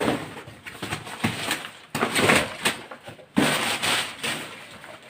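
Packaging rustling in irregular bursts as sneakers are handled and unwrapped.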